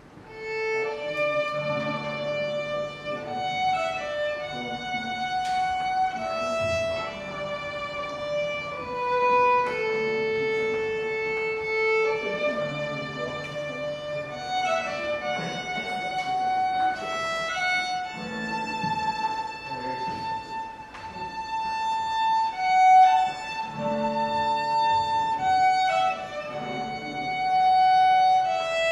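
Violin playing a slow melody of held notes over a lower accompaniment.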